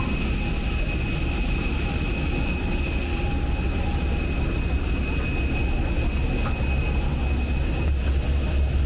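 Steady whine of jet aircraft engines, several high tones held level over a low rumble.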